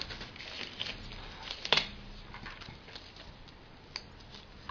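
Light clicks and taps from handling a laptop hard drive in its metal mounting caddy, with one sharper click a little under two seconds in.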